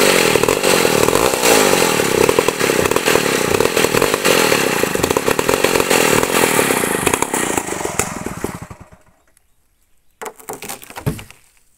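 Stihl chainsaw running at full throttle as it rips lengthwise along a large log, then dying away about eight seconds in. Near the end come a few short wooden knocks as the freshly cut slab is pushed by hand.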